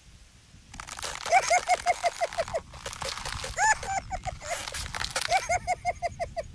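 Crumpled brown paper rustling and crinkling, with a fast string of short squeaky chirps, about five a second, starting under a second in.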